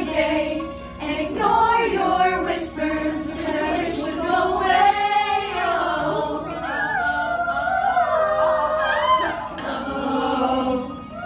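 Choir singing a song, with a long held note in the middle and wavering vibrato later on.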